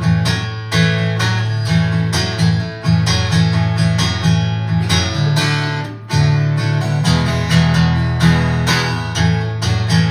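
Acoustic guitar strummed in a steady rhythm with ringing low notes: the instrumental introduction of a folk-rock song.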